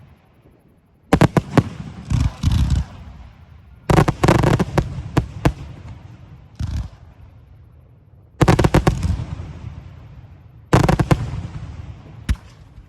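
Fireworks going off in quick volleys of sharp bangs, about six groups, each bang followed by a fading echo.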